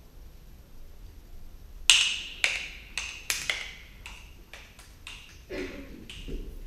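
An irregular run of about a dozen sharp percussive knocks, each with a brief ring. They start about two seconds in, the first is the loudest, and they carry on to near the end.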